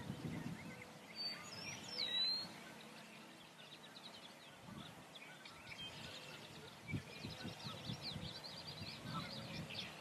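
Birds chirping and twittering in a mixed chorus, with one clear whistled call that slides up and down about a second in. Faint low rumbles come and go underneath.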